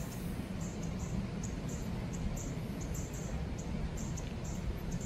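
Short high-pitched chirps repeating irregularly, about two or three a second, over a steady low rumble.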